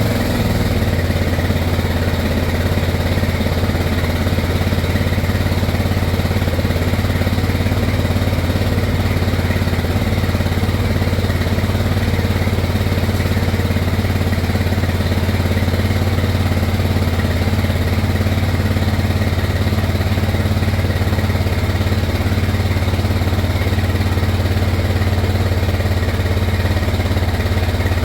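Gas engine of a Power Wheels ride-on conversion running steadily at an even speed, with a strong low hum and no revving.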